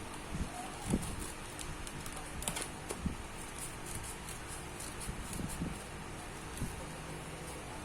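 Scattered light clicks and taps, like small hardware or tools being handled, over a steady hum.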